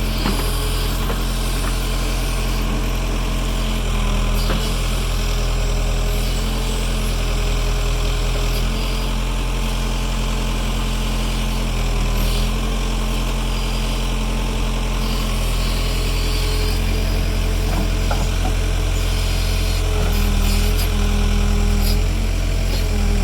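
Backhoe engine running steadily, its note shifting a few times as the load changes, with a few faint knocks.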